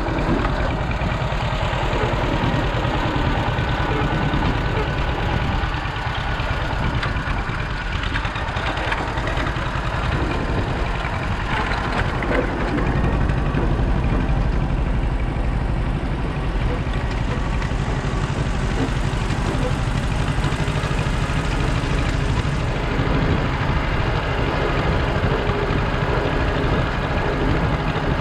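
An engine running steadily at low revs, with indistinct voices mixed in.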